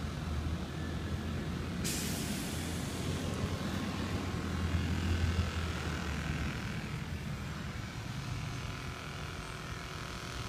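Steady low mechanical hum that fades about two-thirds of the way through, with a hiss that comes in suddenly about two seconds in.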